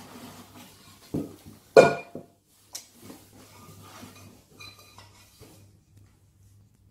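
Granite-coated cookware pots being handled and lifted out of their box and wrapping: rustling of the packaging with a few knocks and clanks, the loudest about two seconds in, ringing briefly. Lighter metallic clinks follow.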